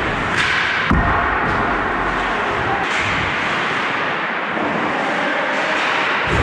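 Ice hockey play in an indoor rink: skates scraping on the ice over a steady echoing hum of the arena. A short scraping hiss leads into a sharp knock about a second in, and a few lighter clicks of sticks and puck follow.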